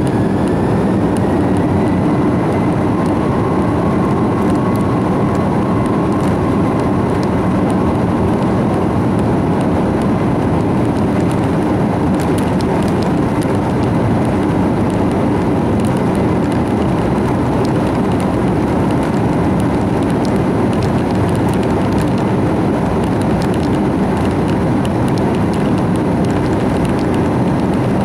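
Airbus A330-300's jet engines at takeoff thrust, heard inside the cabin over the wing along with runway rumble as the airliner accelerates on its takeoff roll. The noise is loud and steady, with an engine whine rising in pitch over the first couple of seconds and then holding.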